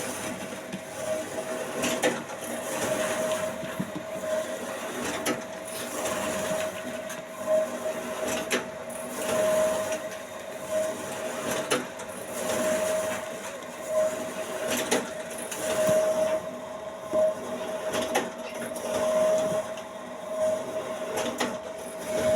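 Automatic tempe sagu making machine running: a steady mechanical hum with a repeating cycle of clacks and knocks about once every second or so.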